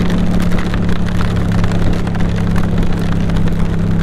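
Yamaha MT-07's parallel-twin engine, fitted with an Akrapovic titanium exhaust, running at a steady, unchanging pitch, with a dense scatter of small ticks from hailstones striking the helmet.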